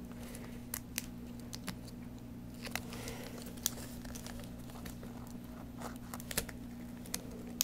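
Faint scattered clicks and crinkles of fingers working a tiny laptop LCD ribbon-cable connector into the new screen's socket and handling the old tape beside it, over a steady low hum.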